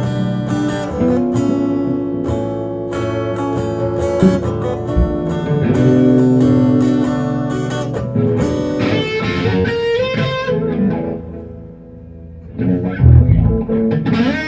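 Live guitar music: plucked and strummed guitar notes ringing out, with heavier bass notes coming in near the end after a brief quieter moment.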